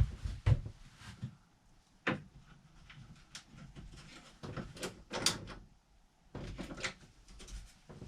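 Irregular knocks, clicks and rattles from an RV shower door's frame and glass panel being handled while the glass is locked into its tabs, with a brief cluster of sharper clacks about five seconds in.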